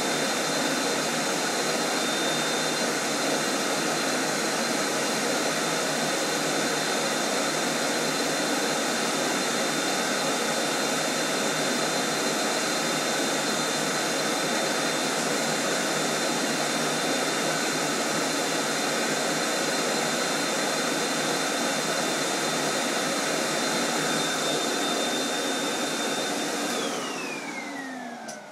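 Vacuum cleaner motor running steadily with a high whine, then cutting out near the end, its whine falling in pitch as the motor spins down.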